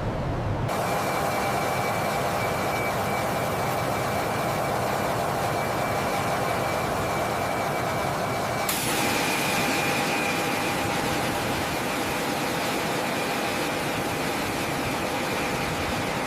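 Fighter jet engines running steadily: a dense rushing noise with a high whine held over it. The sound cuts in sharply just under a second in and changes abruptly about 9 seconds in, becoming brighter and hissier.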